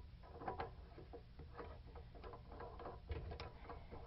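Faint, irregular small clicks and ticks of a loose mounting nut being turned by hand onto a faucet shank, with one sharper click about three and a half seconds in.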